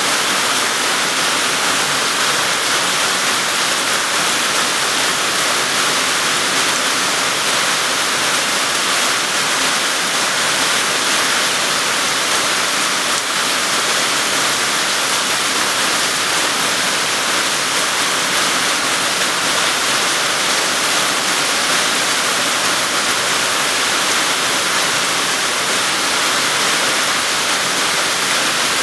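Heavy rain falling steadily on garden plants, soil and puddles: a loud, even hiss that doesn't let up.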